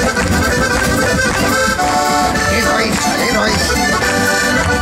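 Live Minho folk music led by a concertina, a diatonic button accordion, playing a lively melody of held and moving notes over the band's steady beat.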